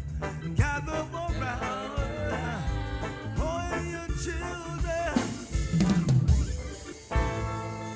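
Reggae band playing an instrumental passage at the end of a song, with a melody line over drum kit, snare and bass drum. A drum fill runs toward the end, and then the band lands on a sustained keyboard chord.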